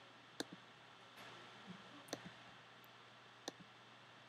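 Computer mouse clicking three times, each click with a fainter second click just after, over faint room hiss.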